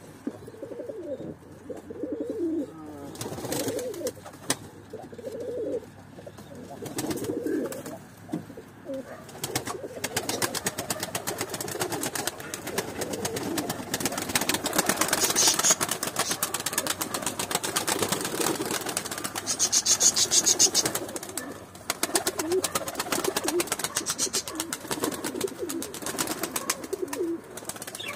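Domestic tumbler pigeons cooing, with rapid wing beats starting about a third of the way in as birds flap and take off, loudest twice in the second half.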